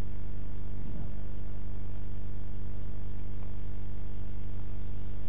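Steady low electrical hum with a buzz of evenly spaced overtones from the recording or sound system, unchanging throughout.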